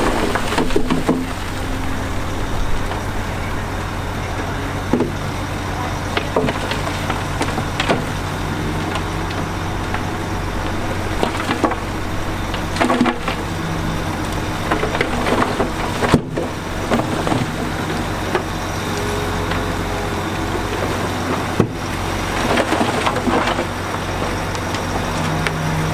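Heavy diesel earthmoving machinery running steadily, with scattered cracks and crunches of rock and dirt being moved.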